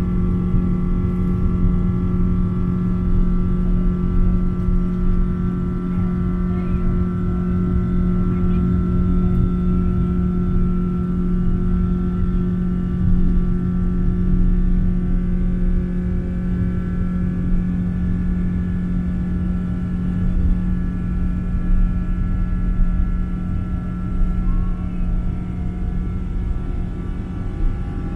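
Steady drone of a Boeing 777-300's engines and airflow heard inside the passenger cabin: a low rumble with a constant hum and a few fixed whining tones above it.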